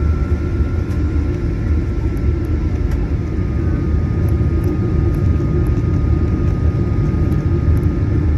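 Steady cabin noise inside a Boeing 737-900ER: a low, even rumble from its CFM56 jet engines and airflow, with a thin steady whine above it.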